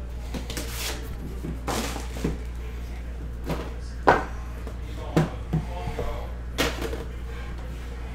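Cardboard box and metal tin of a Panini Immaculate Collection football box being opened by hand: a string of scrapes and sharp knocks as the packaging is slid, lifted and set down, the loudest knock about four seconds in. A steady low hum runs underneath.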